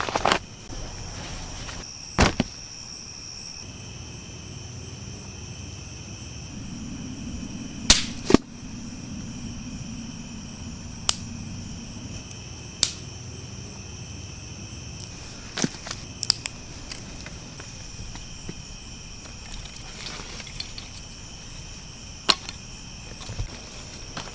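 Crickets trilling steadily in a night-time chorus, with scattered sharp clicks over it, the loudest a close pair about eight seconds in.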